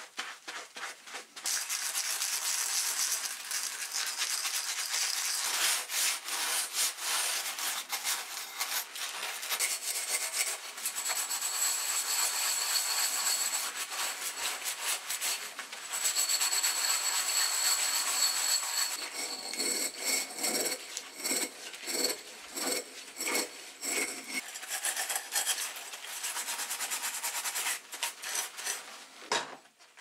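Scouring sponge scrubbing metal moka pot parts in soapy water: a rasping rub in fast back-and-forth strokes, with a thin high squeak in the middle and more separate strokes near the end.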